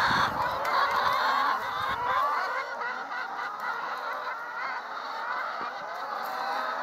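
A large flock of brown laying hens calling all at once: many overlapping clucks and squawks with no pause.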